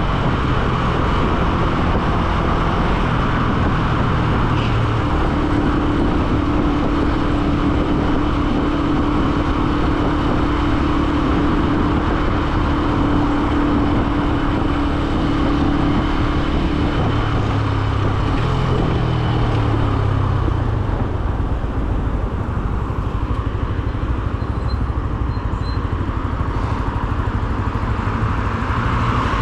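Benelli BN125's single-cylinder 125 cc four-stroke engine running while the motorcycle is ridden in traffic. The engine note holds a steady pitch for about ten seconds starting around five seconds in, then drops and shifts as the speed changes.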